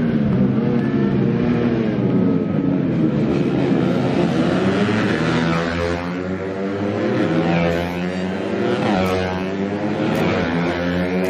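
Racing motorcycle engines running at high revs as the bikes pass close by one after another, the pitch sweeping with each pass.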